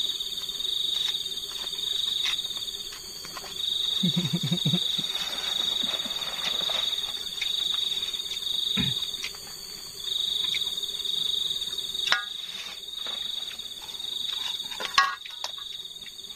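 Night insects, cricket-like, keeping up a shrill, steady trill that breaks off briefly twice. A sharp knock comes near the end.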